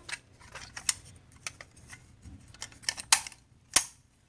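Sharp plastic clicks and snaps of an Autocall fire alarm pull station's handle being pulled and springing back, about a dozen irregular clicks with the loudest near the end.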